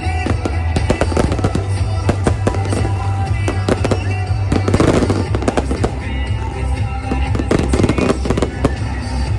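Aerial fireworks going off in a rapid, dense barrage of bangs and crackles, with music playing underneath.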